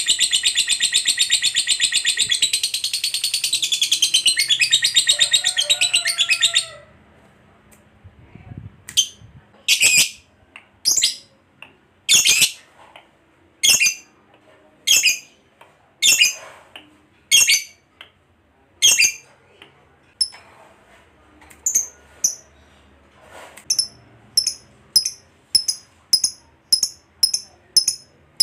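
Lovebird giving a long 'ngekek', a fast continuous high-pitched chatter, that stops abruptly about six seconds in. Then single sharp chirps about once a second, quickening to about two a second near the end.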